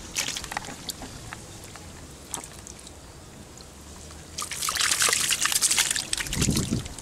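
Shallow muddy water splashing and sloshing as hands grab at Clarias catfish in a ditch. Small scattered splashes and drips come first. About four and a half seconds in, a louder burst of splashing and churning water begins.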